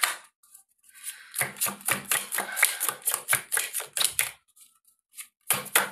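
A deck of tarot cards being shuffled by hand: a quick run of crisp card clicks starts about a second and a half in and lasts about three seconds. A few more clicks come just before the end.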